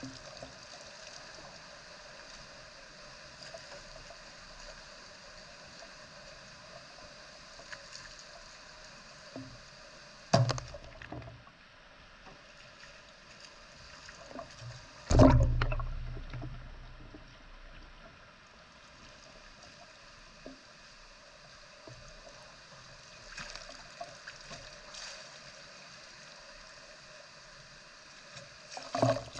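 Rain falling steadily, with three loud wet sloshes: about ten seconds in, about fifteen seconds in (the loudest, dying away over a couple of seconds), and at the very end.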